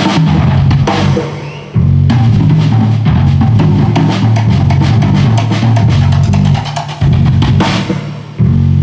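Live jazz band playing, with the drum kit to the fore: busy snare, bass drum and cymbal strikes over bass notes. The band dips briefly about a second in and again near the end, each time coming back in with a sudden loud hit.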